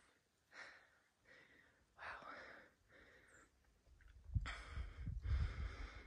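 A hiker's heavy breathing after a climb: a series of breaths roughly one a second, getting longer and louder about four seconds in, where a low rumble joins them.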